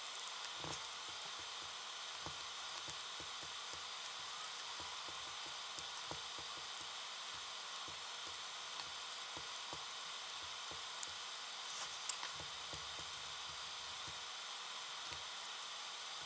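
A steady faint hiss with soft scattered taps and rubbing as the edges of paper coins are dabbed with ink, with a couple of slightly sharper clicks about two-thirds of the way through.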